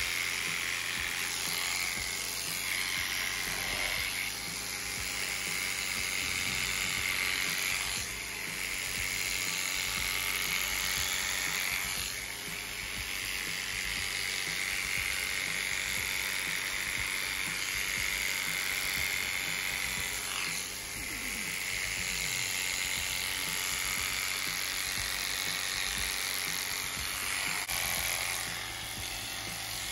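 Corded electric horse clippers running with a steady buzz as the blades cut through a horse's coat.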